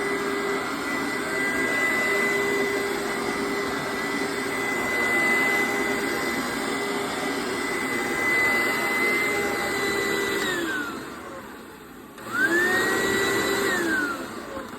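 Hoover SteamVac Dual V carpet cleaner's motor running with a steady high whine. About ten seconds in it is switched off and winds down, then starts again with a rising whine, runs briefly and winds down once more near the end.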